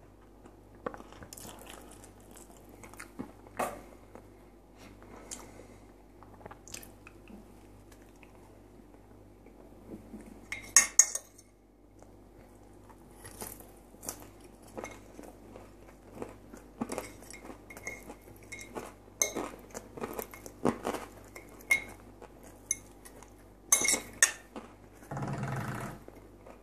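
Close-up eating: chewing fried potatoes and pickled vegetables, with a fork clicking and scraping on a plate and a few sharp loud clinks about ten seconds in and again near the end. Just before the end, about a second of gulping as pickle brine is drunk from a glass.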